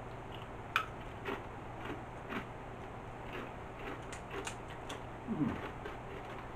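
Tortilla chips crunching as they are eaten, with the crinkle of the plastic chip bag: a few faint, scattered crackles and clicks.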